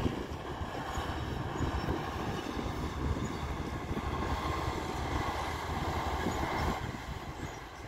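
Diesel engine of a loaded ten-wheel dump truck pulling along a dirt haul road: a steady low drone, with a higher whine that comes in about halfway through and stops about a second before the end.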